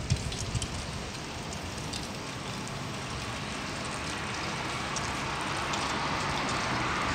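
Wind in a sandstorm, a steady hiss that grows slowly louder, with a few low gusts buffeting the microphone in the first second.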